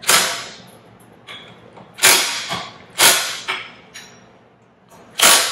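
Cordless power driver running the pump's manifold bolts down in four short bursts: one at the start, two about a second apart around the middle, and one near the end, each starting sharply and fading over about half a second.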